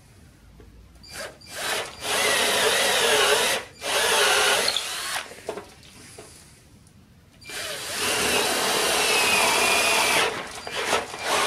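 Cordless drill with a larger twist bit boring straight through the edge of a wooden block, running in two spells: one from about two seconds in, with a brief stop partway, and a longer one from about seven and a half seconds, with quiet handling between.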